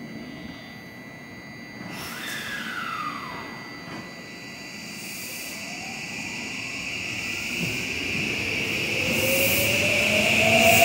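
Odakyu 3000 series electric train, renewed with new VVVF inverter control, pulling away from the platform. After a brief falling tone about two seconds in, the inverter-driven motors give a whine that rises steadily in pitch and grows louder as the train gathers speed.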